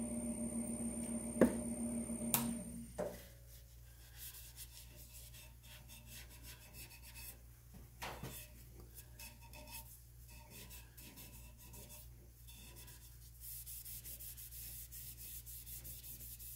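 A steady machine hum with a faint high whine stops after a click about two to three seconds in. After that, a cloth rubs back and forth along a padauk spatula handle on the lathe, wiping on boiled linseed oil, in faint repeated strokes.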